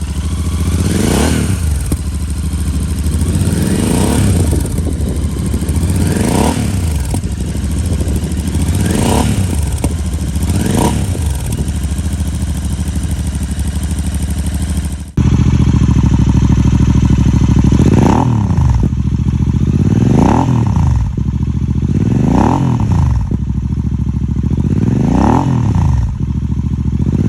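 Royal Enfield Super Meteor 650's 648 cc parallel-twin engine running through aftermarket Mistral exhausts, idling and being revved in short blips about every two seconds. About halfway through the sound cuts to a second take with a fuller, louder low note and the same repeated revving.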